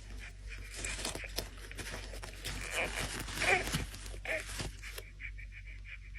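Rustling, scratchy handling noise of the silicone baby doll being moved, with a brief baby-like vocal sound from the doll's built-in sound effects about three and a half seconds in.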